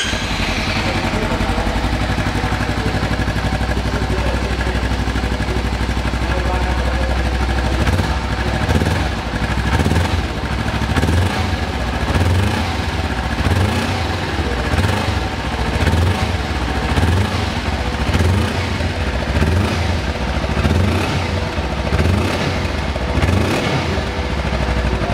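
Kawasaki Versys-X 300's 296 cc parallel-twin four-stroke engine heard at its stock exhaust. It idles steadily, then from about eight seconds in it is revved again and again in short blips, roughly one a second.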